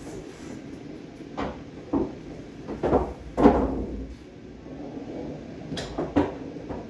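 Pool balls on a bar box table: a series of sharp knocks and clacks, the loudest about halfway through. Near the end two quick clicks come close together as the cue tip strikes the cue ball and it clacks into an object ball.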